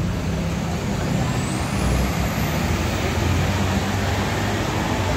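Large diesel tour bus engine running steadily, a low hum over general traffic noise.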